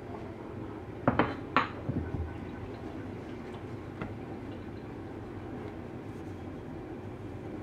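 A sharpening stone being lifted off its metal-rod stone holder: a few sharp clinks and knocks of stone against metal and rubber about a second in, over a steady background noise.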